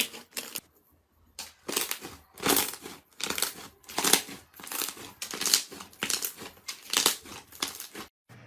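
Slime being squeezed and pressed by hand, making a crinkly, crackling sound in repeated strokes about two a second, with a brief pause about a second in.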